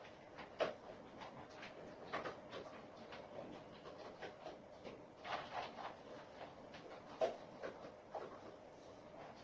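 A dog eating: short chewing and mouth noises at an irregular pace, the loudest about half a second in and again about seven seconds in.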